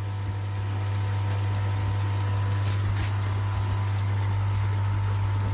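Steady low electric hum over an even wash of running water.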